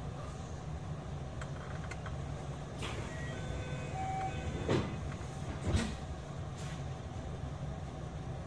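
Inside a JR West 227 series electric train: a steady low rumble, with faint short tones about three seconds in and two knocks roughly a second apart near the middle.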